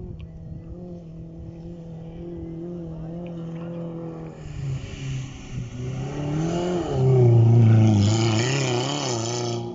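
Off-road rally car's engine at speed on sand. A steady engine drone for the first few seconds gives way to louder revving that rises and falls in pitch with the throttle. It is loudest about two-thirds of the way in as the car passes close by.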